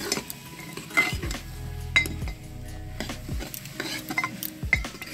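A metal spoon stirring a thick vegetable curry in a metal pot, scraping along the pot and clinking against its side, with a few sharp clinks loudest about one and two seconds in.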